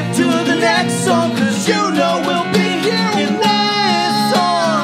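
Live acoustic band music: a strummed acoustic guitar, a bowed violin and an acoustic bass guitar, with a man singing over them.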